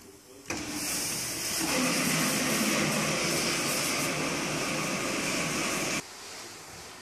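Cabinet parts-washing machine running, washing cylinder heads with a steady rushing hiss of its pump and spray jets. It starts suddenly about half a second in, grows louder a second later, and cuts off abruptly near the end.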